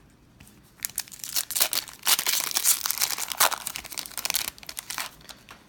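Foil Magic: The Gathering booster pack wrapper being torn open by hand. A dense run of crinkling and tearing starts about a second in, is loudest in the middle, and fades out near the end.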